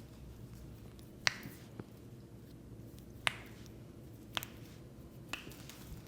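Foot joints popping under a chiropractic adjustment: four sharp cracks, one to two seconds apart, the first two loudest.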